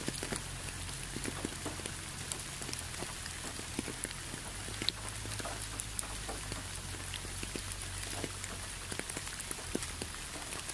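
Steady rain falling, with many separate drops ticking sharply close by, over a low steady hum.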